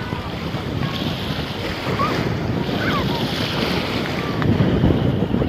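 Wind buffeting the microphone over sea waves washing on the shore, a steady rushing noise, with a few faint distant voices.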